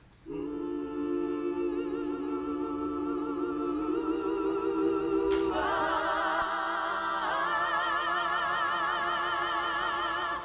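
Background music of a choir singing long held chords with vibrato. It builds as higher voices join about five and a half seconds in and again about seven seconds in, then breaks off suddenly.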